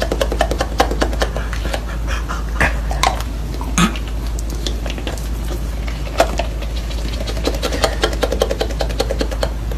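A dog making small sounds amid many quick clicks and taps, over a steady low hum.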